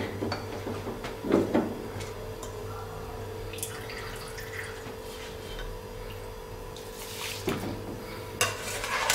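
Spiced water boiling in a pot, a steady bubbling with a few small knocks. Near the end, soaked rice is poured in and splashes into the boiling water.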